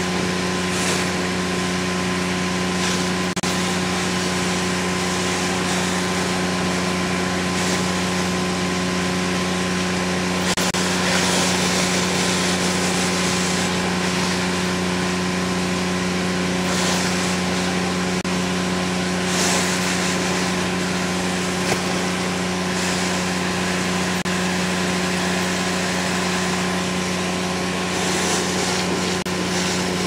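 Engine-driven all-terrain vacuum system running at a steady speed while vacuuming up spilled oil: a constant hum with a rushing hiss over it that swells now and then, most strongly for a few seconds about a third of the way in.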